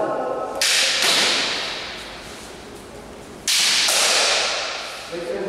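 Two sharp cracks of bamboo shinai strikes on kendo armour, about three seconds apart, each echoing and fading in the hall. A drawn-out shout (kiai) begins near the end.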